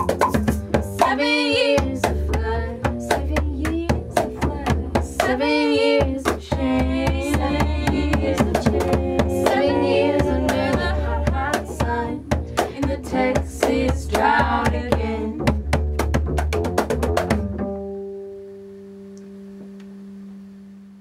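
Folk song ending, with four women's voices singing in harmony over cajon, shakers, clave and upright bass, and quick percussion strikes throughout. Voices and percussion stop together about three-quarters of the way through, leaving a single low note ringing out and fading.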